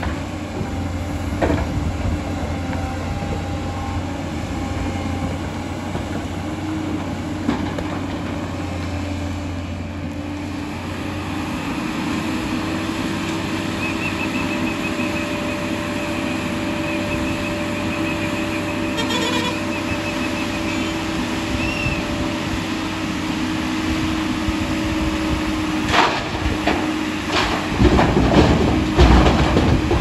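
JCB tracked excavator's diesel engine running steadily under hydraulic load, with a steady low hum. Over the last few seconds come several sharp clanks and clatters as rock is loaded into a steel dump-truck bed.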